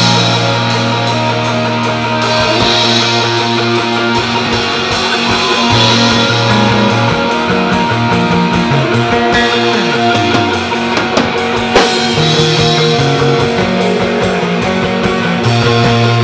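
Live rock band playing an instrumental passage: electric bass line, electric guitars and drum kit, with a fast, steady cymbal beat.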